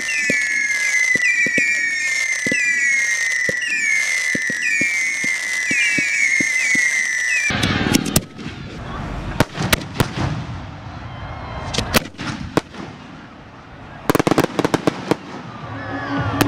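Ground-fired fireworks going off: a run of whistling shots with falling whistles about twice a second, then, after a sudden change, scattered sharp firecracker bangs with a rapid cluster near the end.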